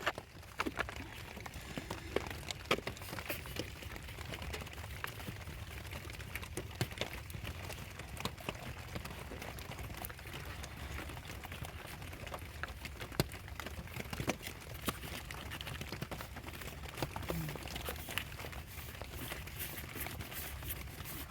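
Scattered light clicks and taps of hand work on engine parts, over a steady low hum.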